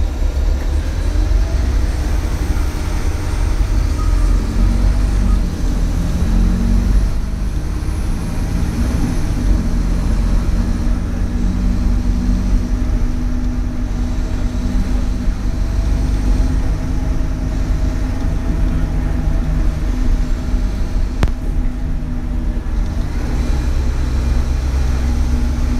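Scania K280UB city bus engine idling steadily while the bus stands at a stop, with a single sharp click about 21 seconds in.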